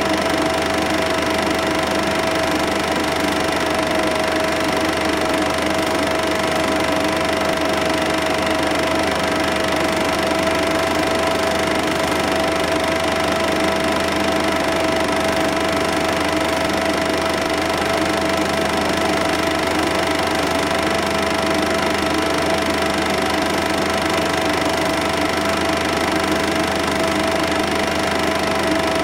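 Cine film projector running steadily: a constant mechanical whirr with a held steady tone, unchanging throughout.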